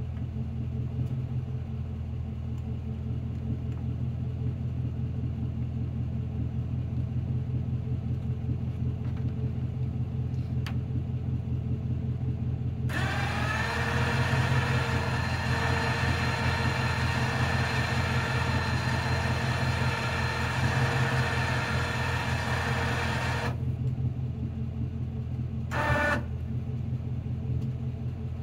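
Pickup truck engine idling steadily. About a third of the way in, the bumper crane's electric winch starts with a steady whine, paying out cable to lower the hook for about ten seconds, then stops abruptly. Near the end it is jogged once more in a short burst.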